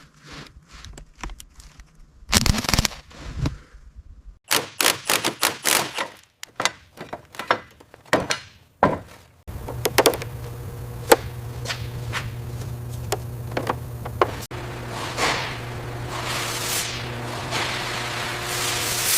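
Workshop work sounds: a run of sharp knocks and metallic clatter, then about halfway a steady low machine hum starts, with swelling hiss over it.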